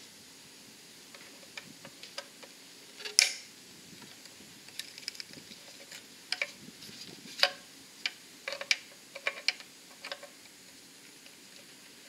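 Scattered sharp metallic clicks and ticks of diagonal cutters working the safety wire on an aircraft engine's oil drain plug, with a louder snap about three seconds in and another about seven seconds in.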